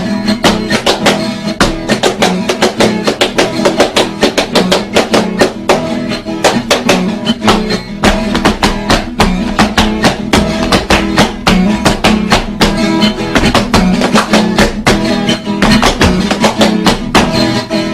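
Instrumental passage of a sertanejo raiz song: strummed guitars keeping a steady, fast rhythm.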